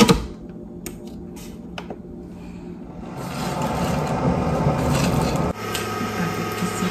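A sharp clink at the start. About three seconds in, an electric coffee maker starts up and runs with a steady low hum and a rushing, pump-like noise as it heats and pushes water through to brew.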